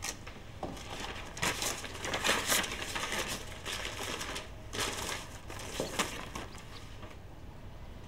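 A folded paper letter being handed over and unfolded: a run of short, crisp rustles and crinkles of paper, dying away about six seconds in.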